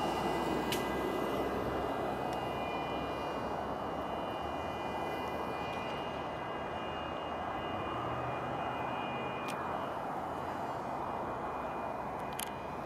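Pickup truck burning: a steady roar of fire, broken by a few sharp pops, one about a second in and two more near the end.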